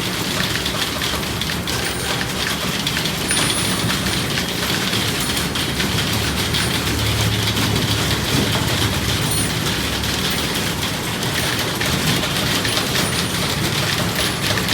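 Typewriter being typed on at speed: a fast, continuous clatter of keystrokes.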